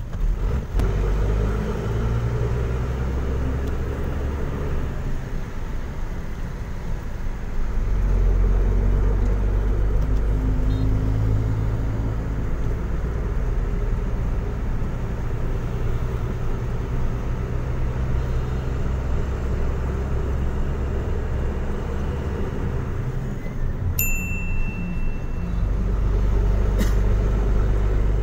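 Truck engine heard from inside the cab, running with a steady low rumble as the truck pulls away from a traffic light, growing louder about eight seconds in as it gets under way. A brief high beep sounds near the end.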